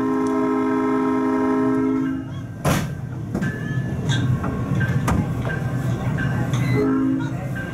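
South Shore Line electric train's horn sounding for a grade crossing: a long blast that stops about two seconds in, then a short blast near the end. Under it the train's wheels rumble on the rails, with a sharp clack a little under three seconds in and lighter clicks after.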